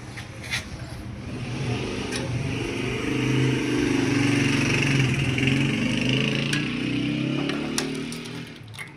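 A vehicle engine runs, growing louder over a couple of seconds, holding, then fading away near the end, with a few sharp clicks.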